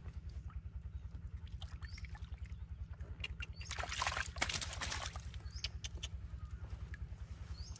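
Hands sloshing and squelching in a shallow puddle of muddy water while grabbing a catfish, with a louder burst of splashing about four seconds in. A low, steady pulsing hum runs underneath, and a short high chirp recurs every second or so.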